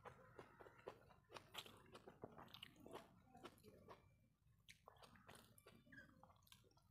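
Faint eating sounds: a person chewing a mouthful of rice and fried greens, with many small irregular wet clicks and crunches, and fingers mixing rice on the plate.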